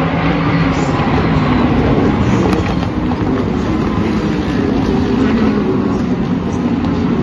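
A field of sports race cars running at speed, several engines blending into loud, continuous engine noise with overlapping engine notes.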